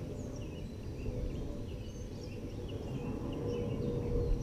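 Small birds chirping and warbling in the background, many short calls, over a steady low rumble.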